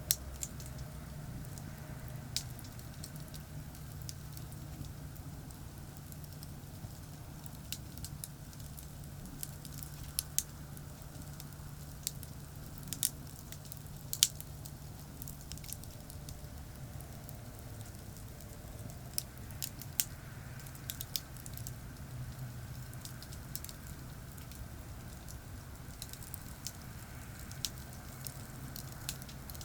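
Campfire crackling, with irregular sharp pops scattered through, over a steady low rumble of distant highway traffic.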